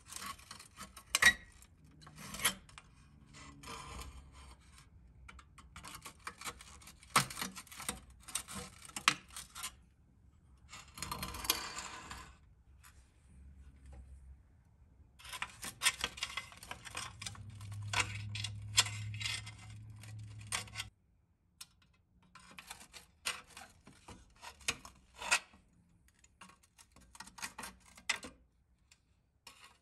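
Hand work on a small metal toy car: scattered clicks and taps of metal parts and tools, with stretches of rasping and scraping. A low hum runs for a few seconds in the second half and stops abruptly.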